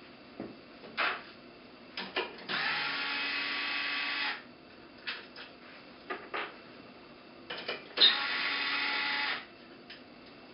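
Power screwdriver running twice, each time for a second and a half to two seconds, with a steady motor whine as it backs out the screws holding the turbine in its housing. Short clicks and taps of the bit and screws come between the runs.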